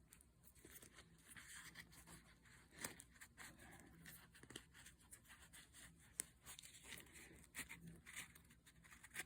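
Faint rustling of a nylon fabric pocket organizer pouch and small clicks as a flashlight and pen are slid into its pockets, with a few slightly louder clicks spread through.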